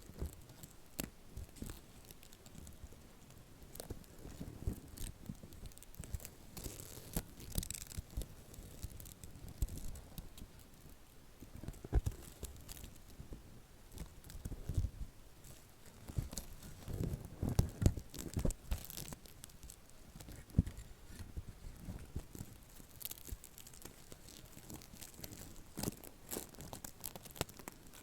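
Close-up handling of soft silicone textures: irregular taps, clicks and rubbing, with clusters of heavier thuds and squishes about twelve to nineteen seconds in.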